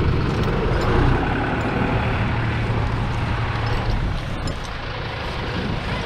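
Farm tractor engine running close by: a steady low rumble that eases off slightly about four seconds in.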